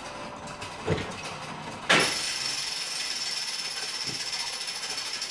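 Tower clock and carillon mechanism of the Belfry of Bruges working: two sharp knocks about a second apart, then a steady run of ratcheting gear noise with a thin high whine.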